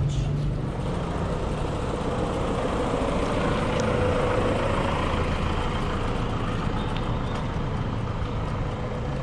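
A motor engine running, over a steady low rumble. It swells to its loudest about four seconds in, then fades.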